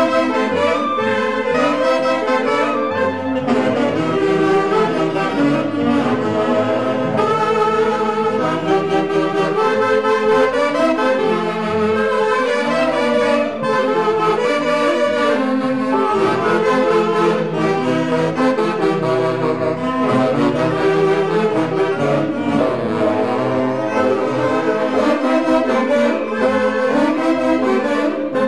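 Andean orquesta típica of clarinets and alto and tenor saxophones playing a tune together. The music is loud and continuous.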